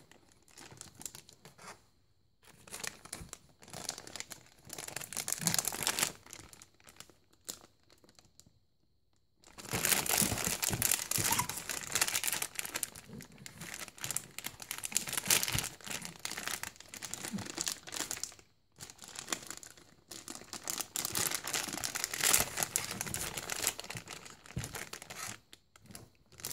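A crinkly foil-lined snack bag being grabbed and crumpled by a baby's hands, crackling in irregular bursts. It is light and patchy at first and goes almost silent for about two seconds, then turns louder and denser about a third of the way in, with a brief pause about two-thirds through.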